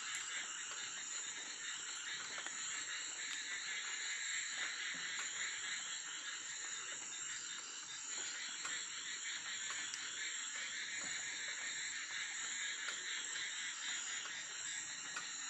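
Night chorus of frogs and insects: a steady high drone with a dense, fast-pulsing trill of calls beneath it, unchanging throughout.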